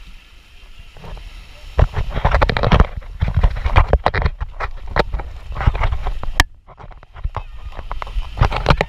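Wind buffeting an action camera's microphone, a low rumble with irregular crackling gusts and thumps, over small waves washing on the shore.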